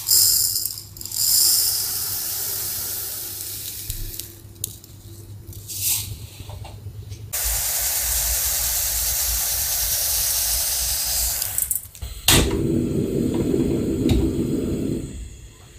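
Sesame seeds poured in a steady stream into a small iron pan, a hissing patter lasting about four seconds. Near the end, a sharp click and then the rushing of a gas burner's flame under the pan.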